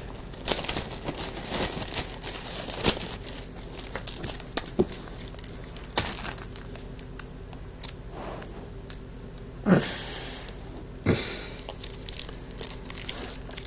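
Plastic wrappers of sour hard candies being crinkled and torn open by hand: a run of sharp crackles, with a longer, louder rustle about ten seconds in.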